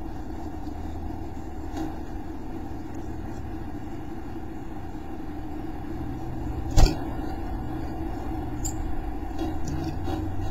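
Carolina chickadee moving about inside a wooden nest box over a steady low hum. There is one sharp knock about seven seconds in and a few light clicks after it.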